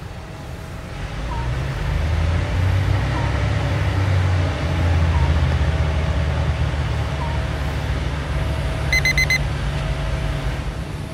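A diesel engine running with a low, steady hum that grows louder about a second in and then holds. A brief burst of high beeps comes about nine seconds in.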